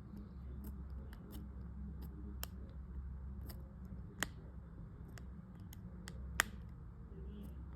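Scattered small clicks and snips of a pointed prying tool working at an iPhone's casing, with two sharper clicks about four and six seconds in, over a low steady hum.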